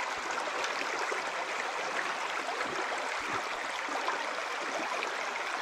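Steady rush of a small trout stream's flowing water over rocks.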